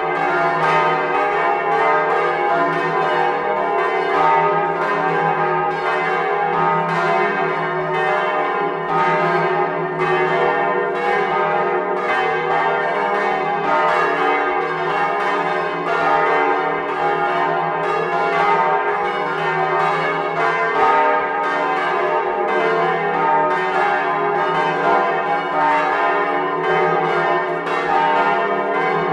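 Several large bronze church bells swinging and ringing together, heard close up in the belfry: a loud, unbroken peal of overlapping strokes with the long hum of the bells sounding beneath.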